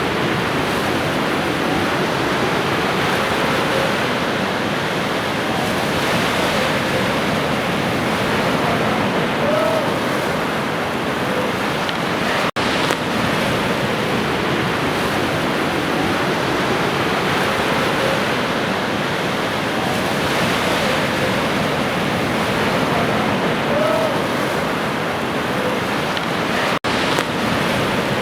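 Sea waves washing ashore in a steady, continuous rush of surf. The recording is looped, and it cuts out for an instant about halfway through and again near the end, where the loop restarts.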